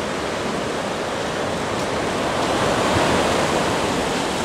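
Steady rush of ocean surf, swelling slightly about three seconds in.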